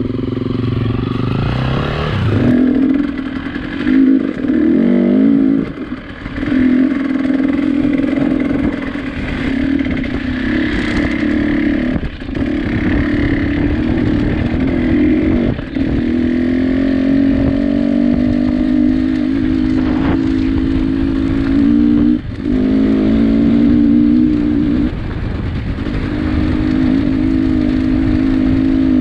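A vehicle engine running hard at high, fairly steady revs, its pitch dipping briefly and picking back up several times.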